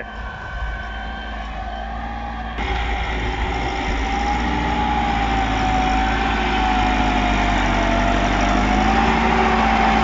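Massey Ferguson 375 tractor's diesel engine running steadily while working a five-tine chisel plough in dry ground. It sounds distant at first, then from about two and a half seconds in it is close and gets steadily louder, its pitch wavering slightly.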